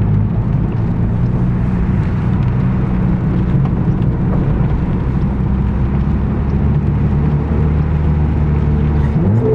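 Car engine and road noise inside the cabin on a wet mountain road, the engine holding steady revs, then revving up sharply just before the end.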